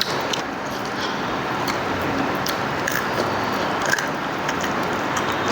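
Scattered short clicks and smacks of someone chewing and biting food, over a steady background noise.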